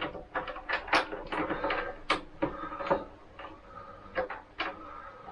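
Irregular clicks and light knocks of tools and metal parts being handled while fitting a part, about a dozen sharp strikes with short gaps between them.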